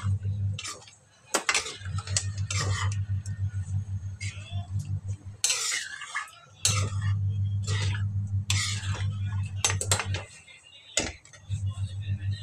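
Metal ladle scraping and clinking against a steel kadhai while thick chickpea curry is stirred, over a steady low hum that cuts out briefly three times.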